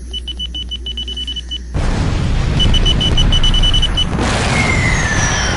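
Missile sound effects: a rapid high electronic beeping, about eight beeps a second, then a loud rushing noise that starts suddenly about two seconds in. The beeping comes back over it, and near the end a whistle falls steadily in pitch.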